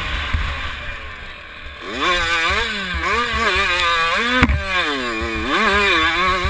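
A 65cc two-stroke motocross bike engine, off the throttle and quieter for about a second near the start. It then revs up and down repeatedly, its pitch rising and falling with the throttle and gear changes. A low rumble of wind buffets the helmet-mounted microphone, and there is a sharp knock about four and a half seconds in.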